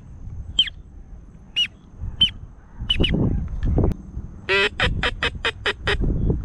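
Duck calling aimed at teal: short, high, falling peeps about once a second, then a quick run of about seven nasal quacks near the end.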